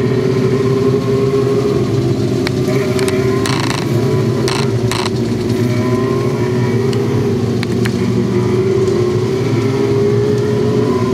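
Several mini sprint car engines running together at a steady, slightly wavering pitch. A few short hissing bursts of noise come between about three and five seconds in.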